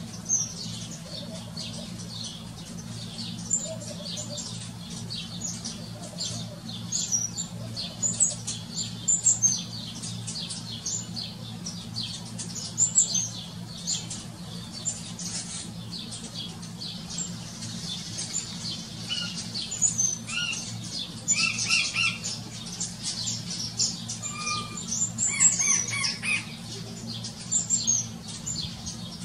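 Flock of house sparrows chirping: many short, high chirps throughout, busiest in the middle and toward the end, over a steady low hum.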